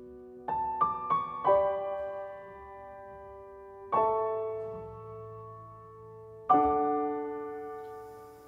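Soft background piano music: a few single notes, then three chords struck about two and a half seconds apart, each left to ring and fade.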